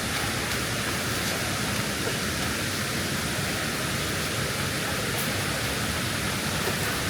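Steady rush of flowing water from a cascading jungle stream.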